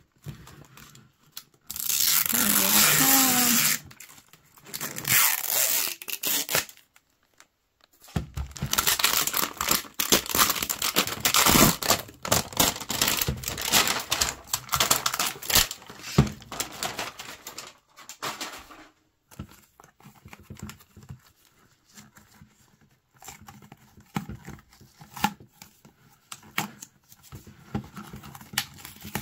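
Plastic packaging wrap being torn and peeled off a toy container, with crinkling of the film. A loud stretch of tearing comes about two seconds in, dense crinkling runs from about eight seconds to eighteen, and quieter, scattered rustles and handling sounds follow.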